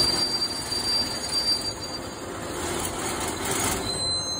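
Emerald-green JR West 103-series electric train rolling along the platform track, its running noise fading as it moves on, with a thin high-pitched wheel squeal over the first two seconds.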